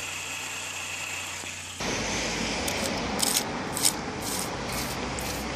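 Water hissing from a DIY spray nozzle fed by the rear washer line onto the radiator and intercooler of a Mini Cooper S R53, with the engine idling underneath. About two seconds in, the sound becomes louder and the spray comes as about six short, sharp hisses, roughly half a second apart.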